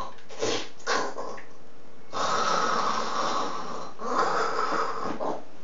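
A person snoring loudly: two short snorts, then two long rasping snores, the first about two seconds long and the second about a second.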